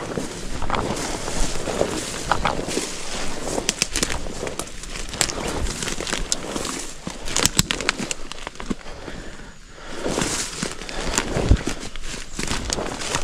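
Footsteps pushing through dense undergrowth: leaves and brush rustling, with many twigs snapping and crackling underfoot and a short pause about ten seconds in.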